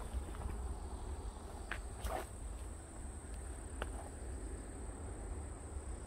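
Insect trilling steadily, one thin high note, over a low rumble, with a few footsteps on the weedy path in the first four seconds, the loudest about two seconds in.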